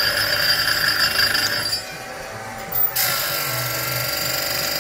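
Automatic saw-chain grinder running as it sharpens a chainsaw chain, its motor and grinding wheel giving a steady whir. About two seconds in it drops away for about a second, then a sharp clunk comes and the running sound picks up again.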